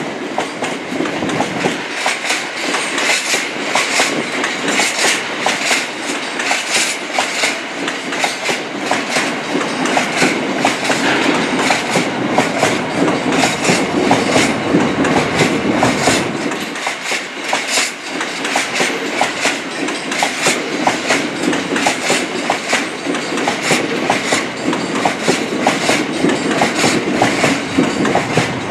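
A train passing close by, its wheels clattering rapidly over rail joints and points, over a steady rumble.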